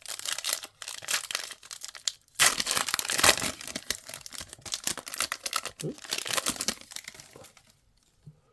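Trading-card pack wrapper being torn open and crinkled: a dense run of crackling rustles, loudest about two and a half to three and a half seconds in, dying away near the end.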